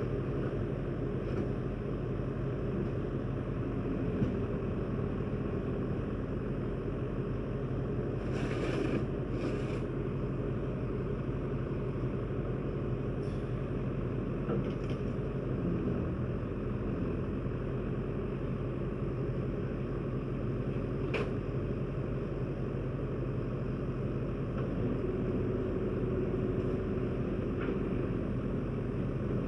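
A vehicle engine running steadily with a low rumble. There are two short bursts of noise about nine seconds in and a single sharp click later on.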